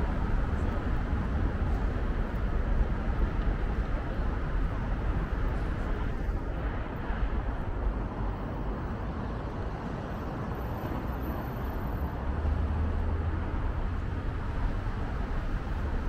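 City street ambience: a steady low rumble of passing road traffic.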